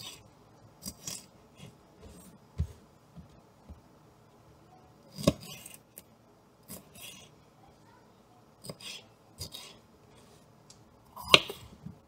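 Kitchen knife slicing bell pepper on a plastic cutting board: irregular crisp cuts and taps of the blade on the board, with two louder knocks about five seconds in and near the end.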